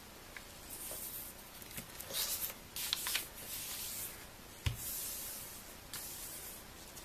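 A sheet of paper rustling and rubbing as hands slide it and smooth it flat on a table, in several short swishes, with one dull knock about two-thirds of the way in.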